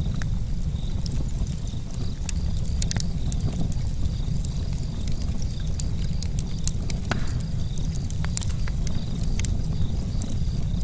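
Charcoal campfire crackling: irregular sharp pops and ticks over a steady low rumble.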